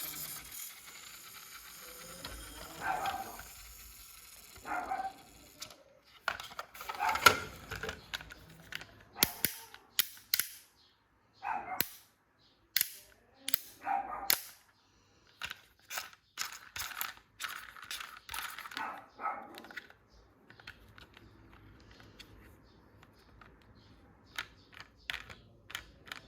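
Toy packaging being unboxed by hand: a run of sharp plastic and cardboard snaps and clicks with a few short squeaks, busiest in the middle, then faint scattered handling ticks near the end.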